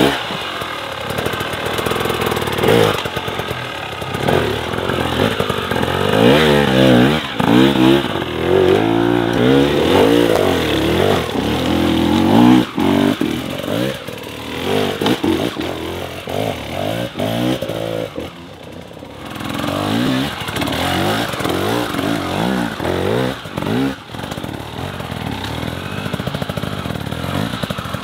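Hard enduro dirt bike engines revving hard in quick, repeated rising and falling bursts as the bikes are forced up a steep rocky climb, with a brief lull about two-thirds of the way through.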